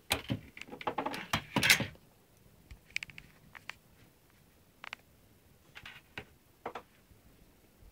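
Metal chassis parts of a Sharp RP-116 drawer turntable being handled on a workbench: a cluster of clattering knocks in the first two seconds, then scattered light clicks and taps of small parts.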